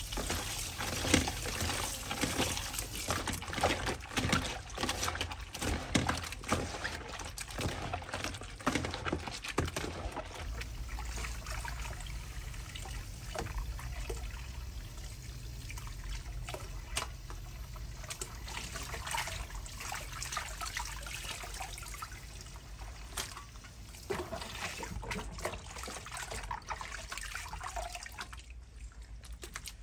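Tap water pouring into a bowl of raw spider octopus while a hand rubs and squishes the salted octopus to wash it, with wet splashing and squelching. The handling is busiest over the first ten seconds, and the running water goes on more steadily after that.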